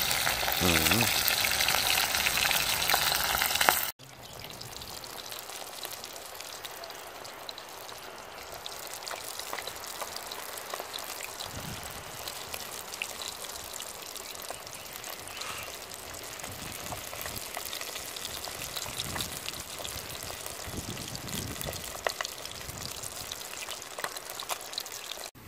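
Fish frying in hot oil in a cast-iron pot over a wood fire: a steady sizzle with fine crackles. It is loud at first and drops suddenly to a quieter sizzle about four seconds in.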